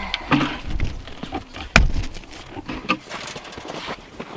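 Footsteps trudging through deep snow, with irregular knocks and clicks and one sharp knock about two seconds in.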